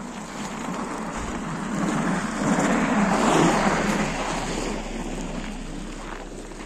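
A car driving past, its noise swelling to a peak about three seconds in and then fading away.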